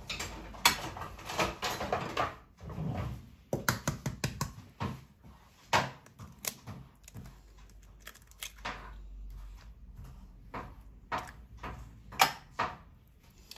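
Eggs being cracked against a mixing bowl and the shells pulled apart: a scattered series of sharp taps and crunches, with a quick cluster of them about four seconds in.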